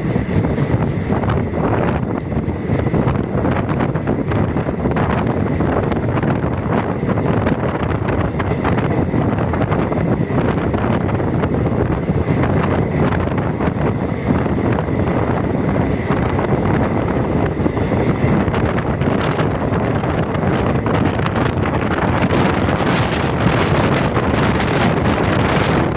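Moving train's wheels rumbling steadily on the rails, with heavy wind buffeting the microphone. A faint high whine runs through the first two-thirds.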